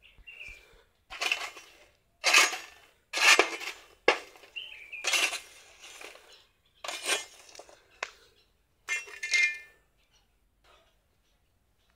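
Smouldering, half-charred dry banana peels being flipped and scraped with a wooden stick on an iron sheet: a run of dry scraping, rattling strokes about once a second, stopping near the end. The peels are being turned so they char to charcoal without flaming.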